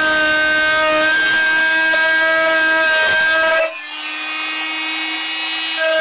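Metal-drilling machine running with a steady whine of several held tones. About two-thirds through, the low rumble cuts out abruptly and the whine carries on slightly changed.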